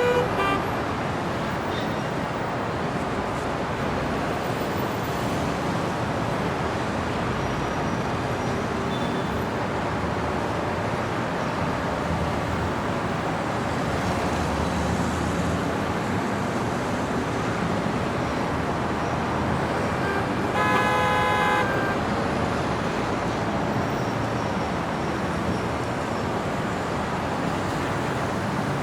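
City street traffic: a steady wash of passing cars and tyre noise, with a car horn sounding once for about a second near the end.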